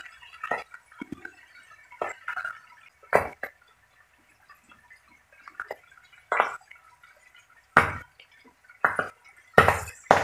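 Soy-marinated milkfish steaks frying in hot oil in a wok: a light sizzle broken by irregular sharp pops about once a second as the oil spits and spatters.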